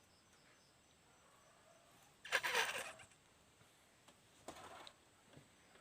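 A man coughs once, a short, harsh cough about two seconds in, followed by a fainter brief noise about a second and a half later.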